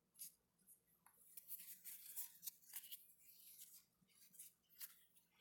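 Faint rustling and sliding of baseball trading cards being flipped through by hand: soft scraping swishes and small clicks, busiest through the middle.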